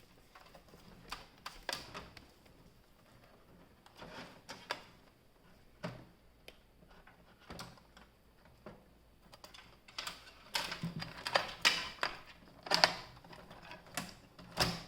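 Scattered light clicks and knocks as a motherboard is slid into a computer case and seated on its standoffs. The clicks come thicker and louder over the last few seconds.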